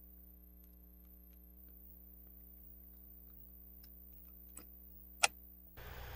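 Faint scattered clicks of small plastic parts and a metal coil spring being handled and fitted into a plastic toy gearbox, over a steady low electrical hum; one sharper click a little after five seconds in.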